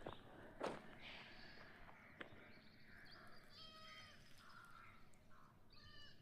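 Quiet outdoor ambience with a few faint, short animal calls, each a clear pitched note with overtones, about three to four seconds in and again near the end. A single soft knock comes just under a second in.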